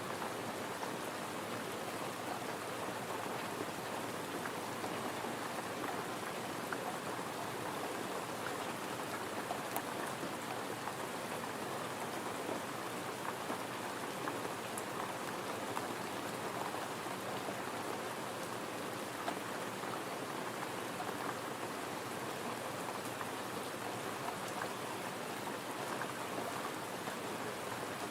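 Gentle rain falling steadily, an even patter of drops that keeps up without a break.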